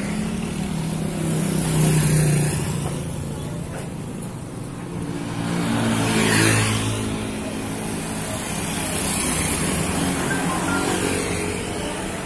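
A coach bus idling with a steady low engine hum while road traffic passes. About six seconds in, a motorcycle goes by on the wet road, its tyre hiss rising and falling as it passes.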